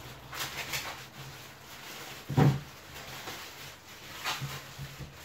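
Hands working at a kitchen counter: intermittent rubbing and rustling, with a single soft thump about two and a half seconds in, over a faint low steady hum.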